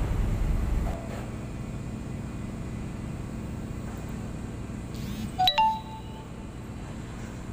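Steady low hum of the terminal and ship machinery. About five and a half seconds in, a single sharp metallic clink rings briefly.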